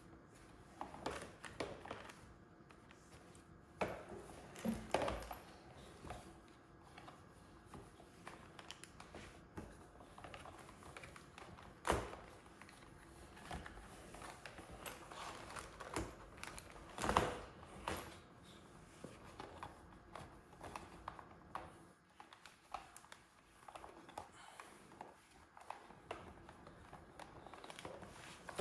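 Light clicks, knocks and rubbing of plastic as a Hozelock hose reel is handled: the crank handle worked and the garden hose fed onto the reel drum. Sharper knocks stand out about twelve seconds in and again about seventeen seconds in.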